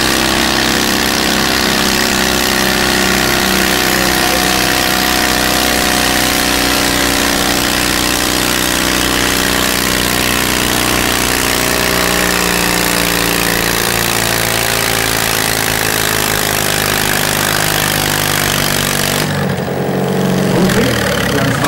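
A modified Super Stock garden tractor's engine running under load as it pulls a weight-transfer sled, a steady multi-tone engine sound. About two seconds before the end it cuts abruptly to a duller engine sound, without the high-pitched hiss.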